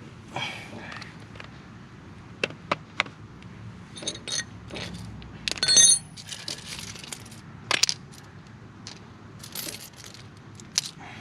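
Small metal hardware being handled: scattered sharp clicks and clinks, with a louder metallic jingle a little more than halfway through.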